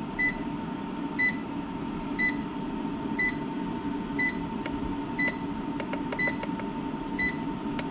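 Short electronic beeps, about one a second, over a faint steady tone. Several sharp clicks come in the second half as the buttons on the EG4 LifePower4 communication hub are pressed.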